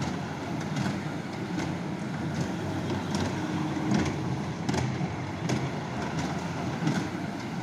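Children's amusement ride train rolling around its small circular track: a steady low rumble with a sharp click about every three-quarters of a second from the wheels on the rails.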